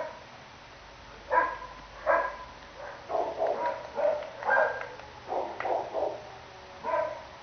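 Dogs barking, single barks and short quick runs of barks, after a quiet first second.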